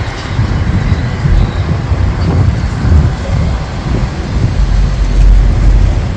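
Wind buffeting the microphone: a loud, uneven low rumble that swells near the end.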